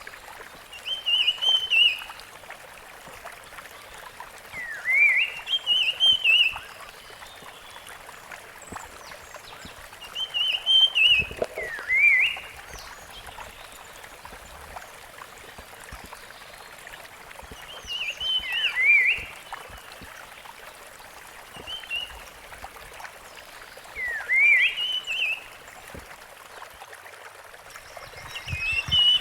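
Rusty-fronted barwing singing: about seven short phrases, each a quick rising note that breaks into a brief warble, repeated every few seconds over a steady background hiss.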